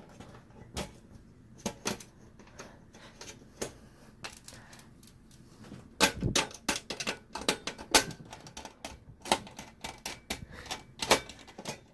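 Small metal screws clicking as they are picked up and set down on a hard surface, with a few scattered clicks at first and a quick run of clicks from about six seconds in.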